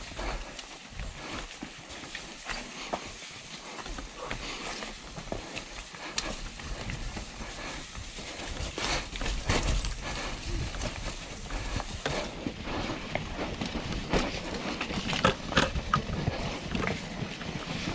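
Mountain bike rolling fast down a dirt trail: tyres crunching over dirt and roots, with frequent rattling clicks and knocks from the bike and brush, and wind rumble on the camera. It grows louder and busier about halfway through as the speed picks up.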